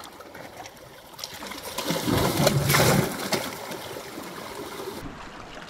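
Sea water surging into a narrow rock gully, building to a loud splashing rush about two seconds in, then easing to a lower wash and trickle as it drains.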